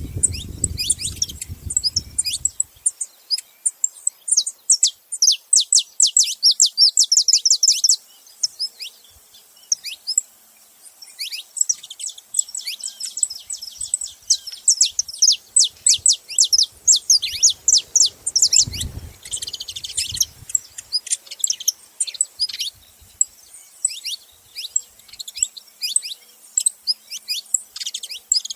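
Saffron finches calling, a long series of quick, high, downward-sweeping chirps that come in dense rapid runs. There is a low rumble in the first two seconds and another brief one about two-thirds of the way through.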